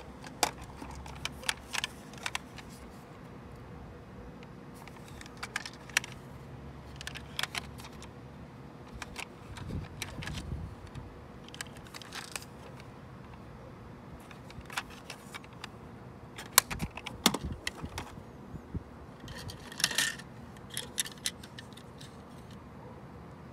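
Toy cars and trucks being picked up and handled on a tabletop, clicking and clattering against each other and the surface in scattered bursts, with a brief low rumble of handling about ten seconds in.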